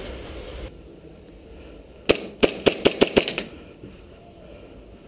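Airsoft 1911-style pistol fired rapidly, a quick string of about eight sharp cracks in just over a second, about two seconds in.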